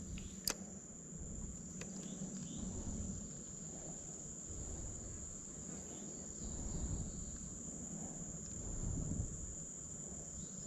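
Steady high-pitched drone of a summer insect chorus, one unbroken shrill tone, with low rumbling underneath and a single sharp click about half a second in.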